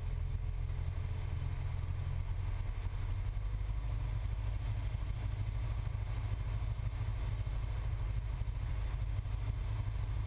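Cessna 172's piston engine and propeller running steadily in flight, a constant low drone heard from inside the cockpit.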